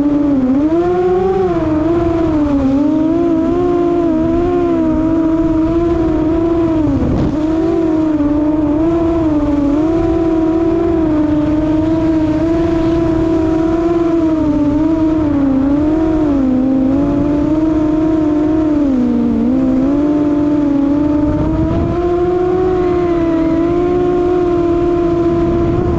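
FPV quadcopter's brushless motors and propellers running at speed, a pitched drone that rises and falls as the throttle changes, with wind rushing over the onboard camera's microphone.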